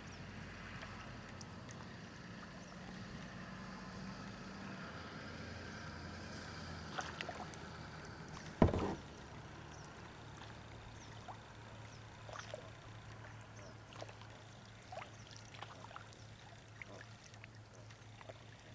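Quiet sounds of a kayak on still water: faint lapping and small drips and ticks, with one sharp knock about eight and a half seconds in.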